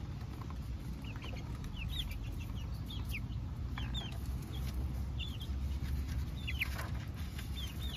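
Backyard hens making soft high peeping calls: short chirps every second or so, over a low steady rumble.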